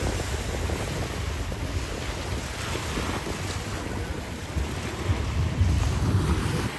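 Wind buffeting the microphone over the wash of small waves on a sea beach, gusting harder about five seconds in.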